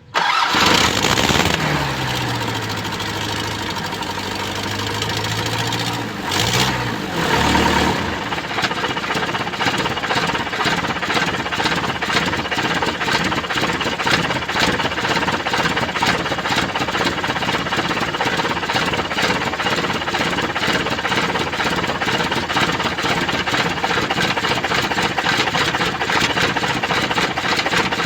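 Mitsubishi Canter's 4D32 four-cylinder diesel engine starting up: it catches suddenly and its speed falls and settles within two seconds. There is a short rev about six seconds in, then it runs on with a steady, rapid diesel clatter. This is a test run after an injector rebuild meant to cure hard starting, misfiring and white smoke.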